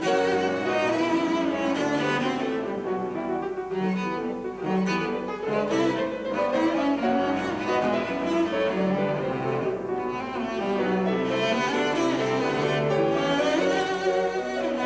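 Solo cello played with the bow: a classical piece in a run of changing sustained notes.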